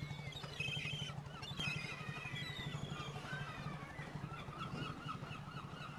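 Gulls calling again and again, short high gliding cries, over the steady low chugging of an idling boat engine.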